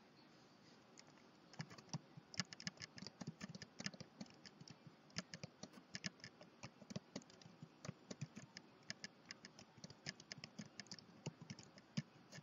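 Typing on a computer keyboard: a run of quick, irregular keystrokes that starts about a second and a half in.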